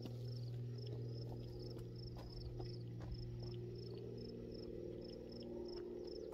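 Crickets chirping in an even rhythm, about three chirps a second, over a steady low hum.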